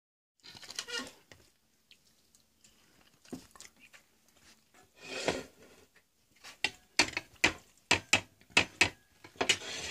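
A cat eating mashed potatoes and peas off a plate, with short wet clicks of chewing and licking. About two-thirds of the way in they come in a quick run, about three a second.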